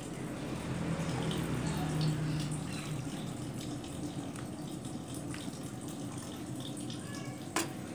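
Rawon soup ladled from a pot into a bowl: liquid sloshing and pouring, with small clicks of the ladle and a sharp knock near the end.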